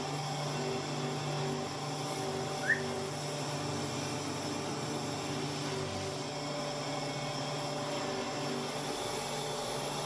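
Electric buffing machine running steadily with a low drone, its polishing wheel spinning against an aluminium motorcycle wheel hub being polished. A brief rising squeak about two and a half seconds in.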